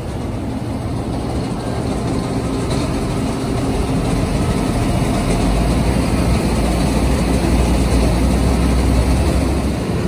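John Deere combine harvester running with its unloading auger on, emptying grass seed into a truck: a steady, heavy machine rumble that slowly grows louder, with the deep hum strengthening about halfway through.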